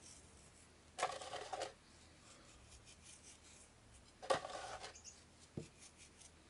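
Fingers scraping pinches of seasoning out of a plastic tub and sprinkling it over raw dove breasts on a plate: two short, faint scratchy rustles, then a light click.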